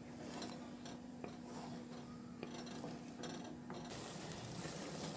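Wooden spatula stirring thick, wet semolina halwa in a metal pan, scraping and tapping against the pan's sides. A faint steady hum under it stops about four seconds in, and the stirring noise grows louder after that.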